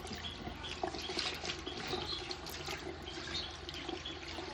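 Water running from a tap into a sink, with small clicks and knocks through it.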